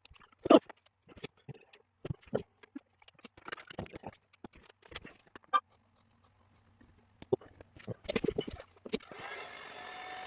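Scattered clicks and taps of small tools and parts being handled on a soldering bench during a PS5 HDMI port repair. About nine seconds in, a steady hum with a faint whine starts and keeps going, the sound of a small electric blower or fan switched on.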